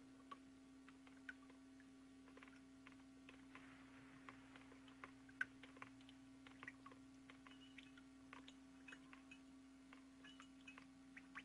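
Near silence: a faint steady hum with scattered soft clicks and crackles at an irregular pace.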